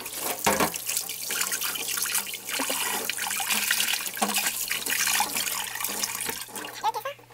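Kitchen tap running into a stainless steel sink, the water splashing unevenly over a bunch of garlic chives being rinsed by hand.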